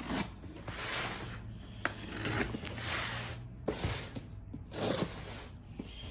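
Rustling and scraping of packing material and cardboard as a shipping box is unpacked by hand: a run of rough swishes with a couple of sharp knocks.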